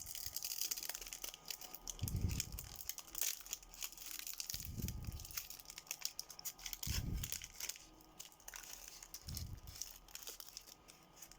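Foil booster-pack wrapper crinkling and tearing as it is worked open by hand, with four soft low thumps of handling spaced a couple of seconds apart.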